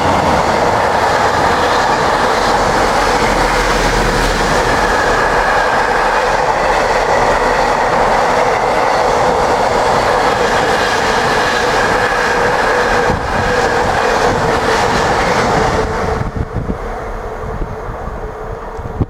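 Freight train wagons rolling past at speed, a steady loud rumble and rattle of wheels on rail. Near the end the last wagon goes by and the sound falls away.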